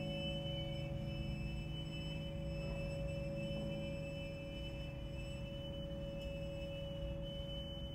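Quiet, sustained contemporary music for string orchestra with cimbalom and bells: several steady held pitches, high and low, ringing on without clear attacks. The loudness eases slightly about halfway through.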